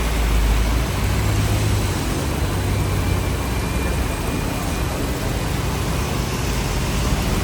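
Hong Kong double-decker tram running along the street: a steady rumble of wheels on the rails with a low motor hum that settles in about a second in.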